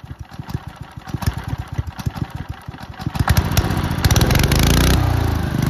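A small petrol engine firing unevenly, then picking up speed about three seconds in and settling into steady running. A loud burst of hissing comes in about four seconds in and stops a second later.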